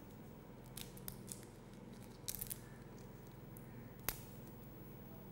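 Fresh lemon leaves being torn and crushed by hand: faint crisp tearing crackles in short bursts about a second in and again past two seconds, with a single sharp click near four seconds, over a faint steady hum.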